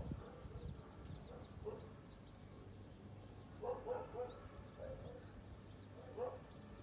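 A mother hen giving short, low alarm clucks, scattered and then several in quick succession near the middle, with a king cobra reared close to her chicks. A faint steady high whine sits underneath.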